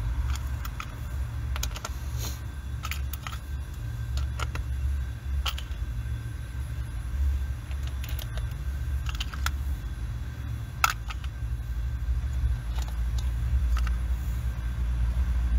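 Scattered light metallic clicks and taps as the valve cover bolts on an Opel Zafira 1.8 engine are set in place and started by hand, over a steady low rumble.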